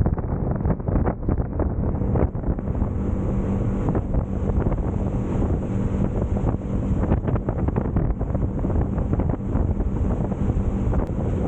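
Wind buffeting the microphone aboard a Clearwater 2508 boat under way, over a steady low engine hum and water noise.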